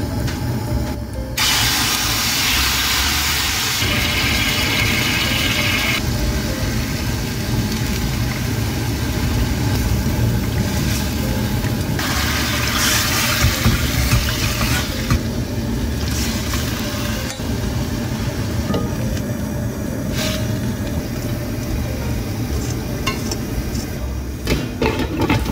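Kitchen cooking sounds: a loud hiss in two stretches, a couple of seconds in and again about halfway, over a steady low hum.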